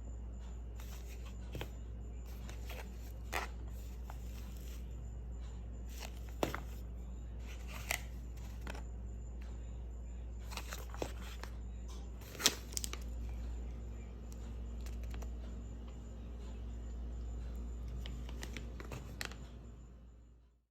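A steady low hum with scattered light clicks and taps of small objects being handled, several sharper ones among them. The sound cuts off abruptly near the end.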